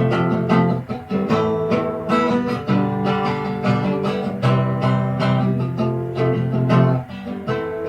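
Acoustic guitar strummed in a steady rhythm, an instrumental passage of chords with no singing.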